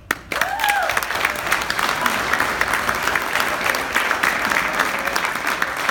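Audience applauding, with one voice whooping briefly about half a second in.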